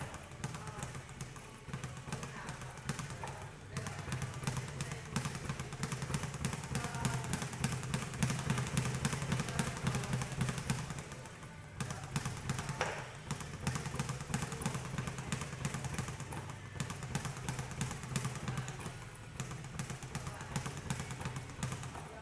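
Speed bag being punched in a fast, continuous drumming of hits as the bag rebounds off its platform. It stops briefly about halfway through, then starts again.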